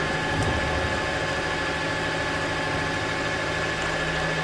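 Manual milling machine running steadily, its 12 mm ball-nose end mill cutting a slot in a motorcycle brake disc: an even motor hum with a steady high whine, and a light click about half a second in.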